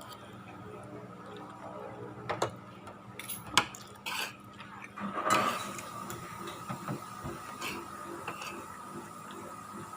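Cutlery clinking and scraping against a plate while eating: a few separate sharp clinks, then a longer scrape about halfway through.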